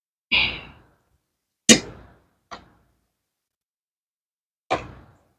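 A spoon knocking on dishes: four short knocks, the second the loudest and the third faint.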